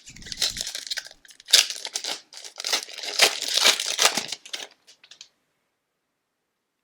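Hockey card pack wrapper being torn open and crinkled in a few rustling spurts, stopping about five seconds in.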